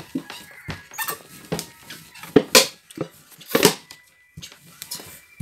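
Wooden rolling pin rolling and knocking over dough on a table: a string of short knocks, with a few louder short sounds about two and a half and three and a half seconds in.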